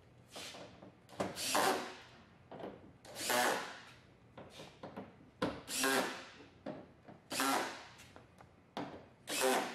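Cordless drill-driver run in short bursts, one screw after another, as it drives the tailgate liner's screws fully home. The bursts come about every one to two seconds, each under a second long.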